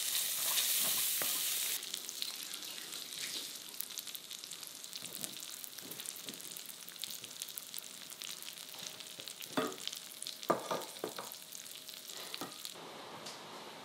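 Bacon pieces and sausage balls sizzling in rendered fat in a stainless steel frying pan as garlic purée is stirred in with a metal spoon. The sizzle is loudest in the first couple of seconds, then settles to a steady crackling hiss, with a few clicks of the spoon about ten seconds in.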